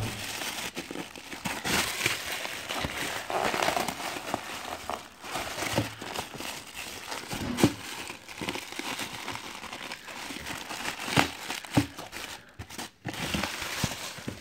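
Plastic packaging wrap crinkling and rustling as hands dig through it in a cardboard box, with a few sharp crackles, one about halfway through and two more later on.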